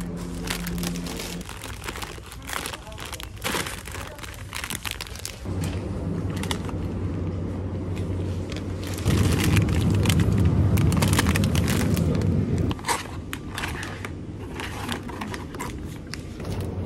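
Plastic food packaging crinkling and crackling as packs are handled and lifted off shop shelves, over a low steady hum that swells for a few seconds past the middle.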